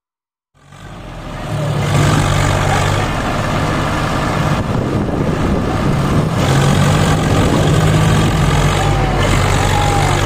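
Diesel tractor engine running steadily, fading in after a moment of silence; its low hum thins between about three and six seconds in and then comes back strong.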